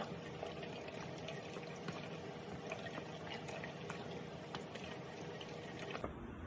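Blended watermelon and lime juice draining through a sifter into a pitcher: a soft, steady trickle with small scattered clicks.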